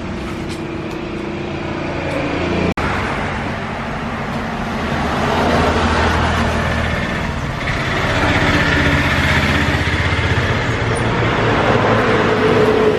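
A motor vehicle engine running steadily with a low hum and mechanical noise over it. The sound breaks off for an instant about three seconds in.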